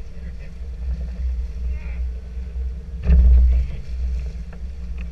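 Steady low rumble aboard a sport-fishing boat, swelling loudest for about half a second around three seconds in, with faint voices under it.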